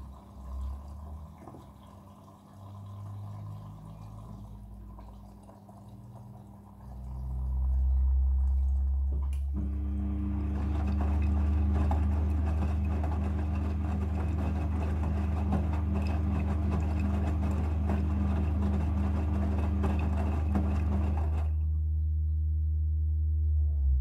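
Front-loading washing machine turning its drum of wet, soapy laundry during a soak cycle. A low motor hum builds a few seconds in. From about ten seconds in the drum turns harder, with a motor whine and the sloshing of water and clothes, and it eases back near the end.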